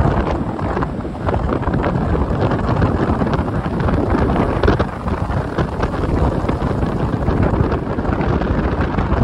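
Wind rushing and buffeting against the microphone from a moving car, with road and tyre noise underneath. It is loud and steady, fluttering irregularly without letting up.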